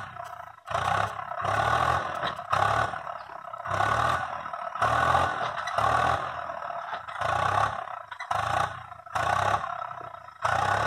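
Tractor engine running under load while its tipping trolley dumps the load, the sound swelling and fading in regular pulses a little under two times a second.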